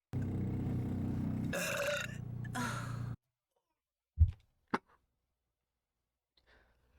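A woman's long, deep burp lasting about three seconds, changing in tone about halfway through. About a second later comes a short, loud thump, then a click.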